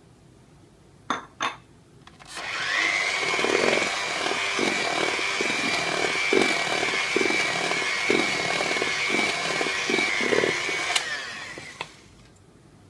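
Two clicks, then an electric hand mixer starts up and runs with a steady high motor whine, its beaters knocking and scraping around a stainless steel bowl as flour is beaten into cake batter; it switches off near the end and the whine winds down.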